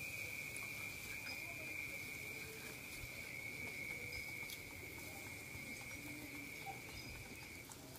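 Night insects trilling: one steady, unbroken high-pitched trill that stops briefly near the end, over faint scattered clicks.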